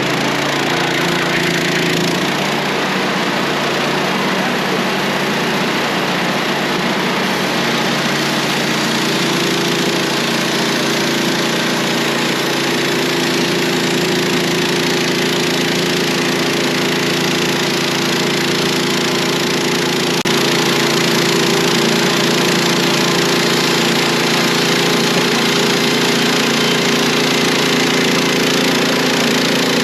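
Wood-Mizer portable band sawmill running steadily with its band blade engaged, sawing a slab off a pine log. It gets slightly louder about two-thirds of the way through.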